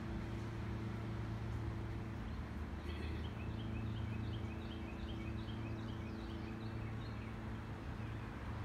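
A steady low motor hum, with a songbird giving a quick run of repeated short chirps, about three a second, from about three seconds in for a few seconds.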